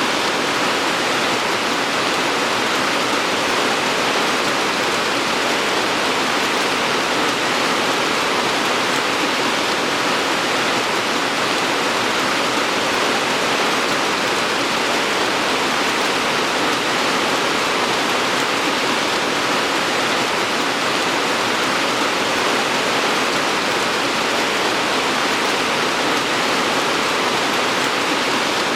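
Steady, even rainfall with no distinct drops, thunder or other sounds.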